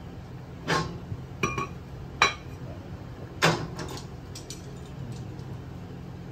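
Metal hand tools and parts clinking: four sharp clinks in the first three and a half seconds, the loudest about two seconds in, over a steady low hum.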